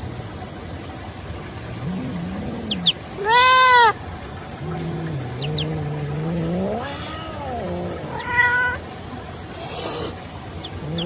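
German shepherd whining in long, low, wavering tones. About three seconds in comes one loud arched whine that rises and falls, and near eight seconds a shorter, higher whine.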